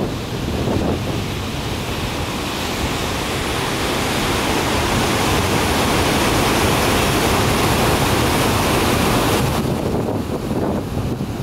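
Loud, steady rushing noise of wind buffeting the microphone, mixed with rushing river water. The hiss eases off about nine and a half seconds in.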